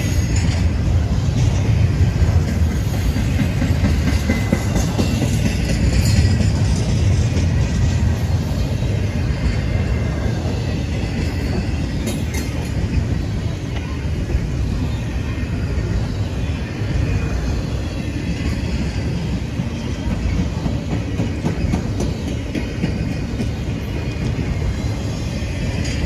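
Double-stack intermodal freight train's container well cars rolling past: a steady rumble of wheels on the rails, with occasional sharp clicks.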